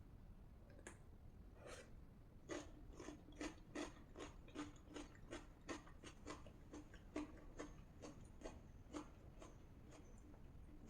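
Close-miked chewing of rajma and rice: a steady run of soft, wet mouth clicks, about two a second.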